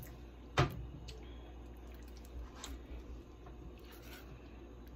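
Silicone spatula stirring and scraping a thick sauce in a stainless steel saucepan, soft and faint over a low steady hum, with one sharp knock about half a second in.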